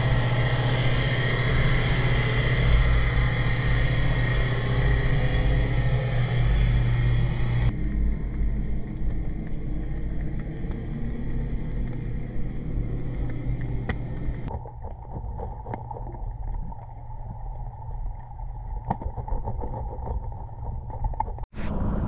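Underwater sound from a submerged camera: a steady low hum and rumble with hiss over it, the sound changing abruptly twice, about a third of the way in and again past halfway.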